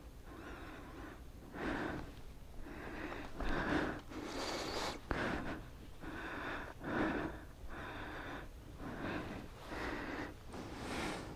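A person breathing inside a full-face motorcycle helmet close to the microphone: a steady run of audible breaths in and out, roughly one a second.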